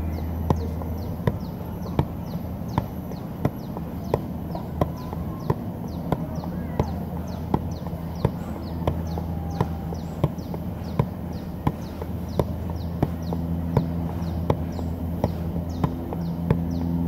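Soccer ball being kicked up again and again in non-stop keepie-uppie juggling: a sharp thud at a steady rhythm of about three touches every two seconds. Under it run a steady low hum and rapid, high falling chirps.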